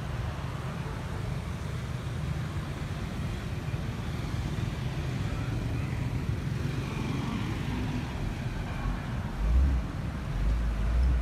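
Steady low vehicle rumble, with two heavy low thumps near the end.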